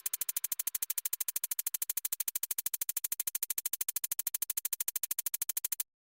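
A rapid, even train of electronic clicks, about a dozen a second, giving a steady buzzing stutter that cuts off suddenly near the end into dead silence.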